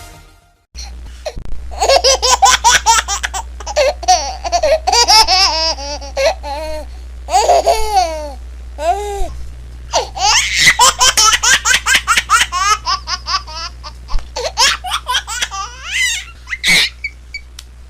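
A baby laughing hard in quick, repeated bursts of giggles, broken by a few breaths and squeals, over a steady low hum.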